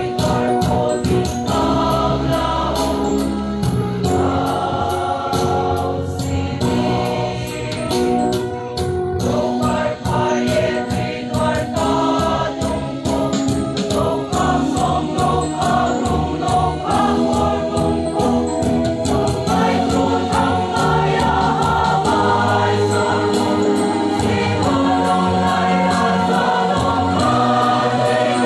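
Mixed choir of women and men singing a Christian hymn together, many voices holding long notes.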